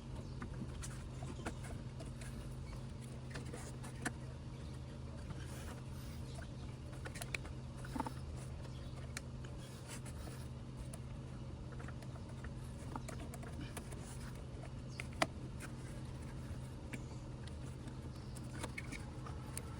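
Steady low hum with scattered light clicks and taps, typical of parts and hand tools being handled during scooter cooling-system work; the loudest tap comes about fifteen seconds in.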